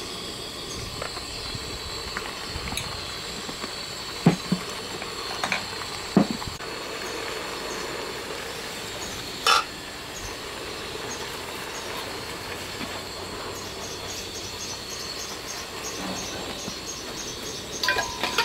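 A few knocks and a sharp clink of a spoon and ladle against a stainless steel stockpot as seasoning goes into the curry. Under them runs a steady hiss with a thin high whine.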